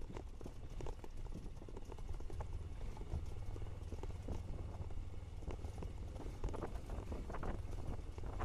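Royal Enfield Himalayan single-cylinder motorcycle riding over a rocky dirt trail: a steady low rumble under irregular knocks and rattles as the bike jolts over stones and ruts.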